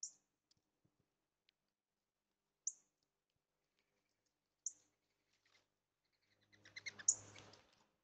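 Small backyard birds giving short, high single chirps, three times about two seconds apart, then a busier second-long flurry of quick chirps and rustling flutter near the end.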